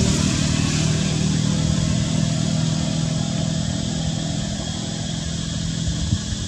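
A motor engine running steadily with a low hum, slowly getting quieter.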